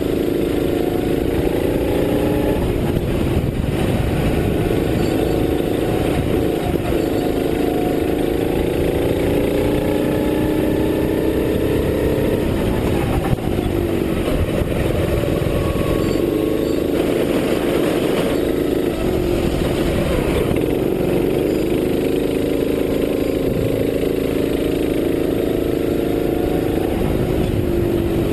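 Racing kart engine heard from on board, its pitch climbing in long rises through the gears of speed and dropping back each time the kart brakes for a corner, about four times, with a low rushing noise of wind on the microphone.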